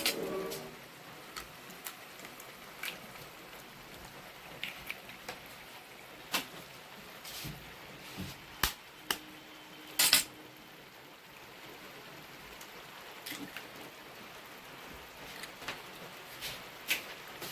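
Eggs being cracked against the rim of a metal kadhai and dropped into onion-tomato masala: scattered sharp taps and clicks, the loudest pair about ten seconds in, over a faint steady hiss of the masala cooking.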